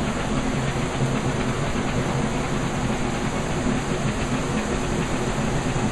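Hot-spring geyser spouting a tall jet of water and steam, a steady, loud rushing hiss.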